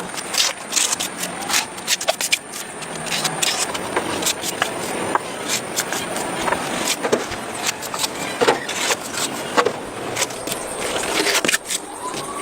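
Irregular clicks, knocks and scrapes of hand work on a car body, several sharp taps a second with no steady machine run between them.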